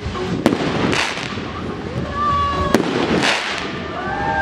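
Aerial fireworks going off. Two sharp bangs of bursting shells about two seconds apart, each followed by a hissing crackle of sparks.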